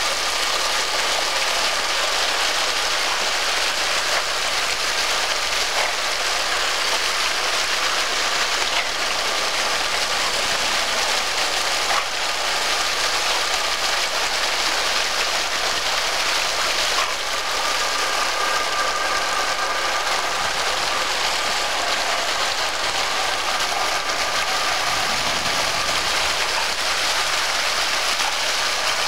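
Open fire hydrant gushing at full flow: a steady rushing spray of water hitting the street.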